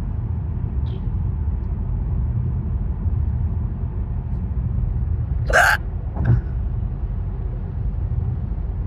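A woman hiccups once, sharply, a little past halfway, followed by a softer second catch about half a second later. Under it runs a steady low rumble like a car's road noise.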